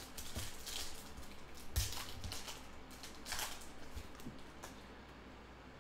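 Foil trading-card pack wrapper crinkling as it is torn open by hand, followed by the cards being shuffled and slid against each other, in several short rustling bursts.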